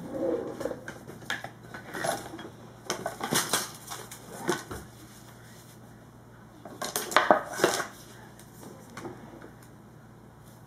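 Hard tools clinking and knocking as they are handled on a countertop, in a few short clusters of clatter, the loudest about seven seconds in.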